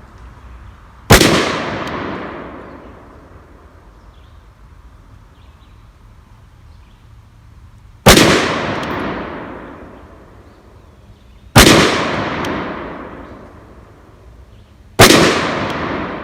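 Four single shots from a PSA AR pistol in .223/5.56, fired several seconds apart, each sharp crack trailing off in a long echo of about two seconds.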